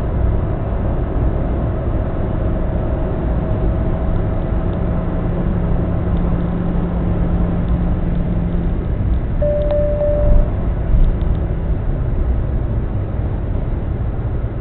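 Car cabin noise at highway speed, about 130 km/h: a steady low road and engine rumble. A short single-pitched beep sounds about ten seconds in.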